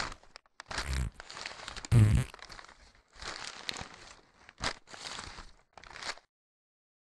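Cartoon sound effects: irregular bursts of rustling, crackly noise, with a few low thumps in the first two seconds. The bursts stop about six seconds in.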